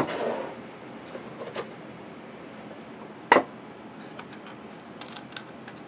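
Hand cutters snipping the end off a small circuit board: one sharp snap about three seconds in, with a click at the start and light handling ticks around it.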